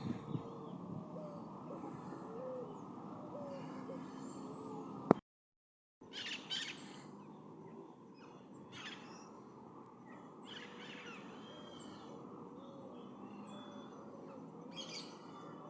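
Forest birds calling: soft, short hoot-like notes repeated low down, with brief high chirps over them, above a steady faint background hiss. A sharp click about five seconds in is followed by a second of silence.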